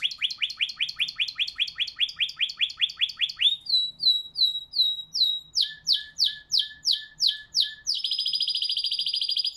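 Domestic canary singing a long song in phrases of rapidly repeated notes. It opens with a fast run of falling notes, then slower high whistled notes, then a run of sweeping notes. About eight seconds in it switches to a fast trill.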